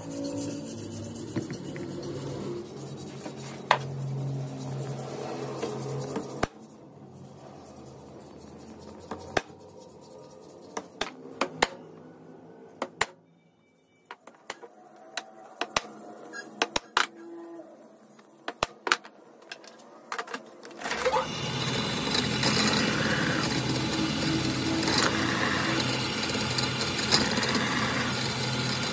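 Hand punch struck a dozen or so times at irregular intervals, marking hole centres on a metal plate held in a vise. About 21 seconds in, a drill press starts running and drilling the holes through the plate, a steady machine sound to the end.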